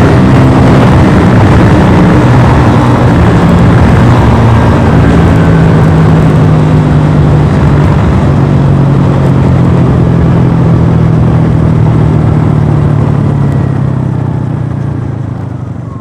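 Modified Modenas Kriss 110 single-cylinder four-stroke engine, big-bored with a racing cam and an aftermarket Apido exhaust, running hard at high, fairly steady revs with wind rush. It eases off and fades away near the end.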